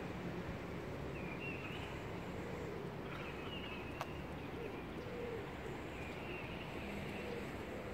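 Birds calling outdoors: short high warbling chirps every second or two, with a few lower wavering calls, over a steady low rumble of distant town traffic. A single sharp click about four seconds in.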